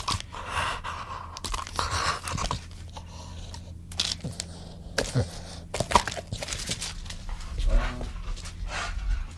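Irregular crunching and clicking noises over a steady low hum.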